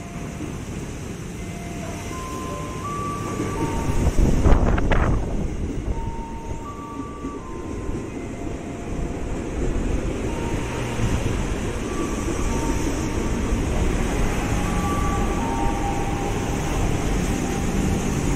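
KRL Commuter Line electric multiple unit running into a station along the platform, its wheels rumbling on the rails as the cars roll past. About four seconds in there is a short, loud sound that falls in pitch.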